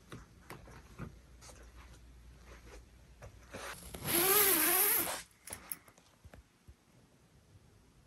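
The zipper of a mesh mosquito net tent being pulled along in one continuous zip of about a second and a half, its pitch wavering up and down. A few light clicks and rustles come before it.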